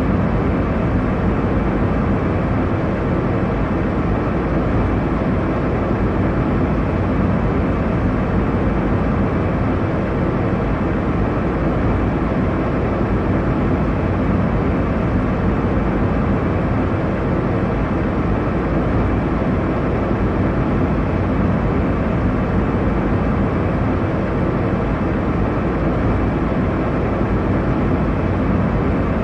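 Airliner cabin noise in cruise: a steady, unchanging rush of engine and airflow noise, heaviest in the low end.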